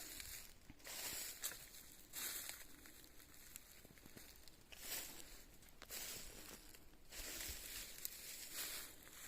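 Footsteps rustling through leaf litter and undergrowth on the forest floor, slow, uneven steps about a second apart.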